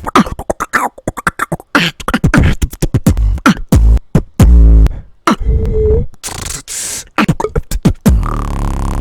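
Human beatboxing: fast mouth-made clicks and snares over deep kick-drum hits, with a couple of held buzzing bass sounds, one about halfway through and one near the end.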